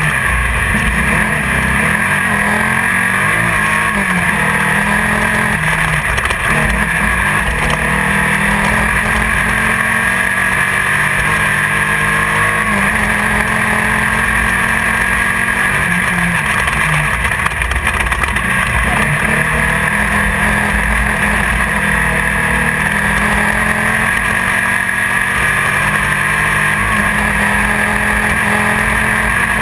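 Class 1600 off-road race car's air-cooled Volkswagen engine running hard, heard from inside the car, its pitch rising and falling continually with the throttle over a constant loud rumble.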